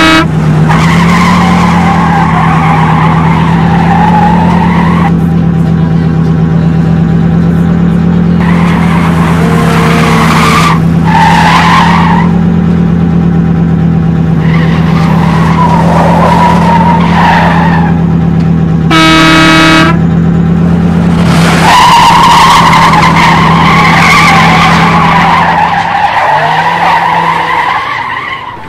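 Car sound effects: a steady engine hum with tyre-skid squeals over it. A car horn sounds once, for about a second, about two-thirds of the way through.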